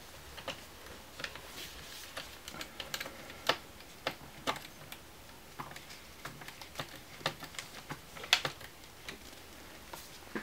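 Scattered small clicks and taps, irregularly spaced, from hands and a tool working at the lower corners of a laptop's plastic screen bezel.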